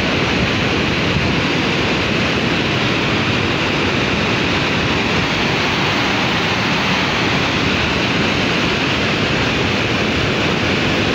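Fast, muddy river floodwater rushing in one steady, loud wash of noise.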